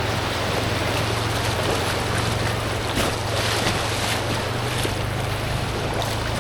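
Creek water rushing steadily around an inflatable kayak, with wind noise on the microphone.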